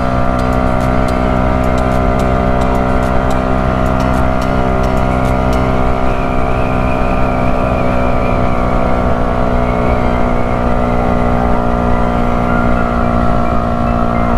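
Yamaha YZF-R125's 125 cc single-cylinder four-stroke engine running steadily at a constant cruising speed, its pitch holding level, with wind rush.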